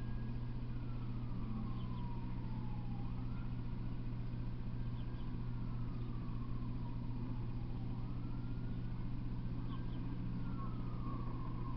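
A distant siren wailing, its pitch rising, holding briefly and then sliding down, about every four seconds, over a steady low hum.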